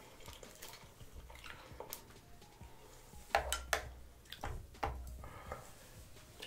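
A mussel being handled and dipped into a glass bowl of sauce: scattered light clicks and taps of shell and fingernails against the glass. A few sharper clicks come between about three and a half and five seconds in.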